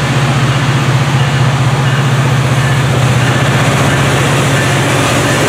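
Amtrak EMD F59PHI diesel locomotive approaching and running close past, its two-stroke V12 engine making a steady, rapidly pulsing low drone over an even rumble of wheels on rail, loud throughout.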